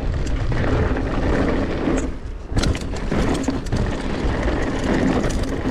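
Mountain bike riding down a rough trail: steady wind rush on the microphone, with tyres and frame rattling and clicking over the ground. A brief lull a little past two seconds in ends in a sharp knock.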